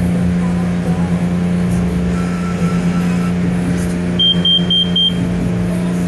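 Steady drone of self-serve car wash bay machinery, with four quick high-pitched electronic beeps from the push-button control panel about four seconds in.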